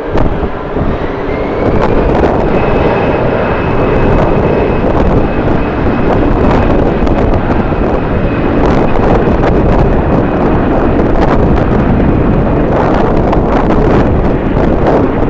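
Jet airliner's engines with a thin high whine that rises a little about two seconds in and then holds steady. Heavy wind buffets the microphone throughout, a loud rumbling that covers much of the engine sound.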